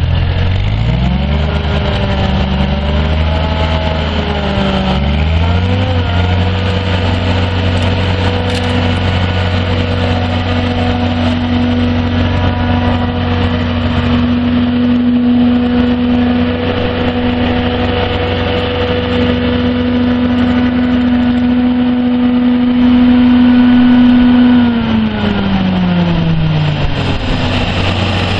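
Hustler 4300 zero-turn mower's Ford 1.1L four-cylinder gas engine throttled up from idle. It wavers for a few seconds, climbs again and holds steady at high speed for most of the time, then drops back to idle near the end.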